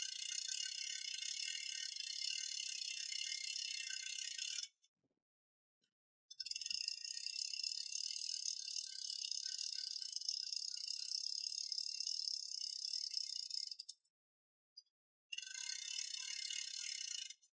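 Hand winch on a mini forklift mast being cranked, its ratchet pawl and gears clicking rapidly. The clicking comes in three runs, each stopping suddenly.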